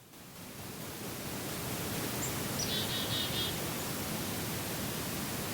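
Steady outdoor background hiss, with one short bird call, a quick trill, about two and a half seconds in.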